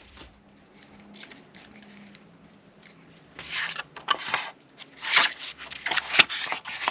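Disc packaging being handled: a few short scrapes and rustles, with a sharp click about six seconds in.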